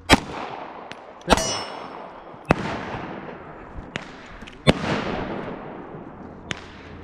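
Pistol shots fired one at a time, four loud cracks spaced one to two seconds apart, each followed by a long echoing tail, then a fainter crack near the end.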